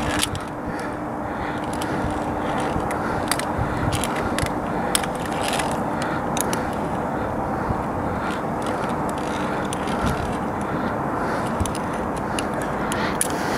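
Climbing along a via ferrata: scattered sharp clicks and scrapes of climbing gear on the steel rungs and cable, over a steady rushing noise on the microphone.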